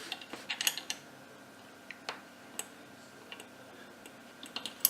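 Small metal screws being handled and started by hand into the holes of a metal stand part: scattered light clicks and ticks, a quick cluster about half a second in and a sharper click at the end.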